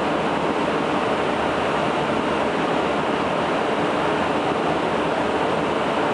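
ThyssenKrupp escalator running: a steady, even rushing noise without clicks or rhythm.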